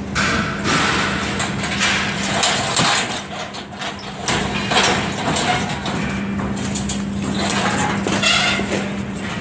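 A crane-slung bundle of scaffold pipes knocking and clattering against itself and its chains as workers guide it, over a steady low hum.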